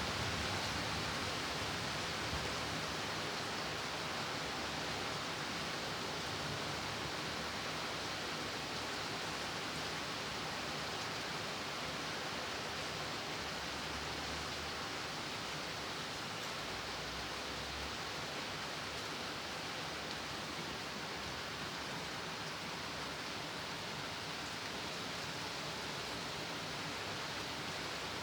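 Steady rain, a continuous even hiss with no break, with a faint low rumble briefly around the middle.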